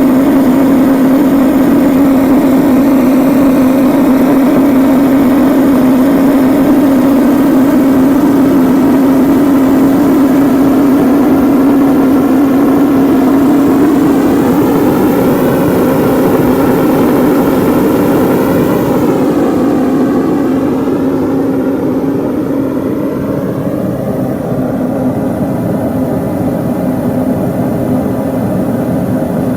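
Homemade waste-oil burner running: a siphon-jet flame blown by an oil-burner fan in a tube, a loud steady rushing noise with a strong low hum. It eases off a little about two-thirds of the way through but keeps burning without flaming out.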